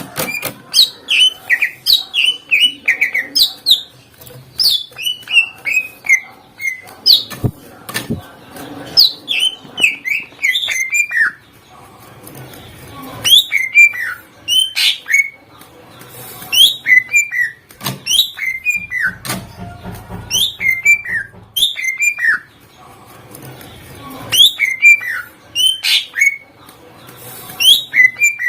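Cucak ijo (green leafbird) singing loudly in fast runs of sharp, falling whistled notes, its song full of mimicked phrases of other birds. The song pauses briefly twice, about twelve seconds in and again about twenty-two seconds in.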